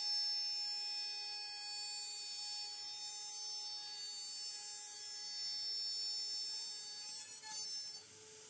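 Home-built CNC router running with a steady, high-pitched whine made of several tones. About seven and a half seconds in the sound shifts, and a lower steady tone takes over near the end.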